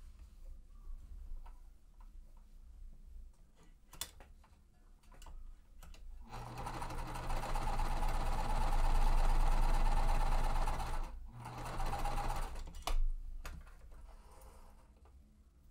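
Sewing machine stitching a quilt-piecing seam: after a few quiet handling clicks it runs steadily for about five seconds, stops briefly, then runs again for about a second, followed by a single sharp click.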